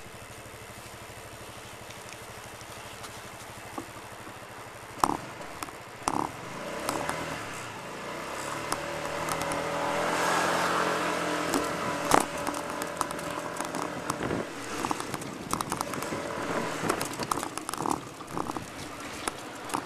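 Street traffic: a car engine running steadily at first, then engine noise swelling to its loudest about ten to twelve seconds in and easing off, with scattered sharp clicks and knocks over the top.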